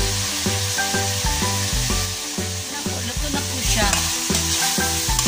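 Pork and string beans sizzling in an aluminium wok while a metal spatula stirs and scrapes through them, with a few squeaky scrapes near the end. Upbeat background music with a stepping bass line plays throughout.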